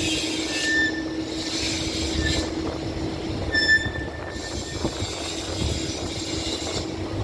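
Loud, steady machine noise with a constant hum, cut by several brief high-pitched squeals.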